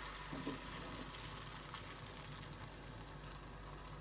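Egg vellayappam batter sizzling faintly and steadily in a well-heated iron appam pan as it is swirled to spread.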